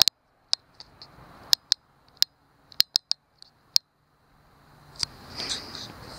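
About a dozen short sharp clicks at irregular intervals over a few seconds, then a faint hiss rising near the end.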